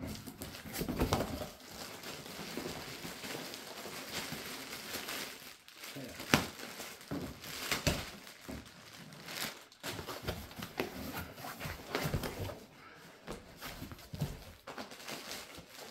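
Packing material in a parcel crinkling and rustling as hands dig through it for beer bottles, with irregular sharper crackles throughout.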